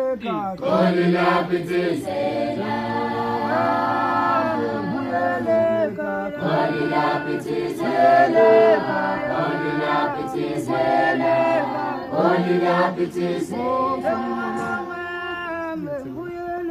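Unaccompanied group of voices singing a Zulu traditional song in harmony, in a call-and-chant style.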